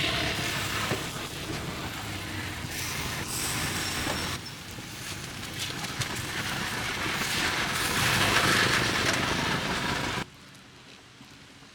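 Street traffic noise with vehicles passing, swelling to its loudest about eight seconds in and falling off sharply about ten seconds in.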